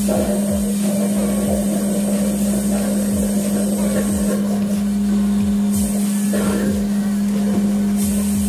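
Loud, steady machine drone, most likely an engine, with a strong constant hum that never changes pitch.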